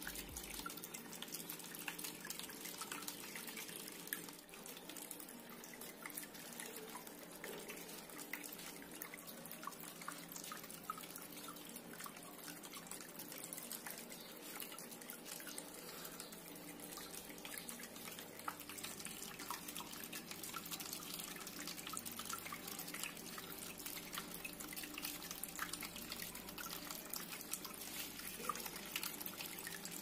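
Tabletop cement water fountain running: water pouring from a spout into a small bowl and spilling over its lips in thin streams onto pebbles, a steady trickling and splashing dotted with small drips.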